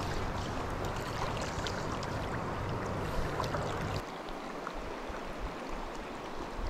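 Steady rush of a shallow creek flowing over its rocky bed. About four seconds in, the lower, deeper part of the sound drops away.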